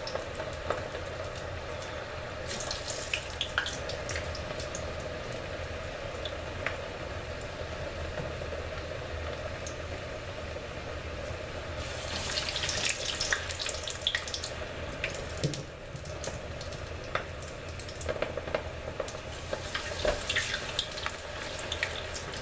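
Chicken tenders deep-frying in a pot of vegetable oil: a steady bubbling sizzle, with louder spells of spattering crackle about three seconds in, around the middle and near the end as pieces are moved and lifted out with a wire mesh skimmer.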